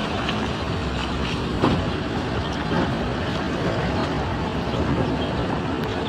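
Steady rumble of a vehicle on the move, with a few light knocks and clicks.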